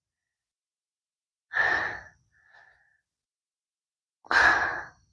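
Two breathy sighs, each about half a second long and a few seconds apart, from a person breathing out close to the microphone.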